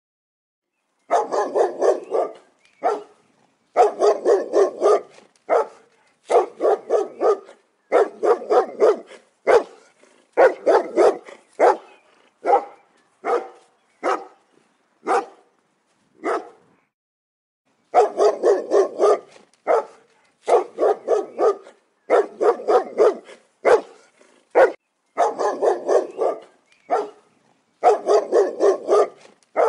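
A dog barking in rapid volleys of four to six barks, about four a second, broken by single barks and short silent pauses, with one longer pause a little past halfway.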